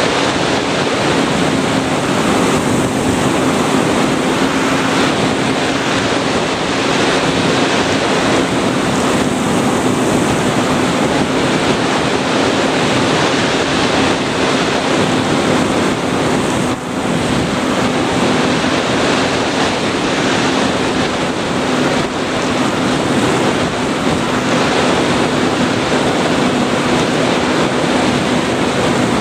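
Steady rush of airflow over the microphone of a Sky Surfer FPV glider in flight, with the even hum of its electric pusher motor and propeller running at constant throttle underneath. A brief dip in the noise about two-thirds of the way through.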